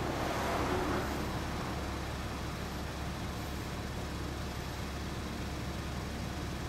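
Honda CBX1000's air-cooled inline-six running at a steady idle through its aftermarket DG exhaust, a little louder in the first second.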